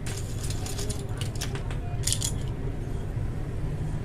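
Small hard plastic keyboard parts clicking and clattering as they are handled and fitted, with a dense cluster of clicks about two seconds in, over a steady low hum.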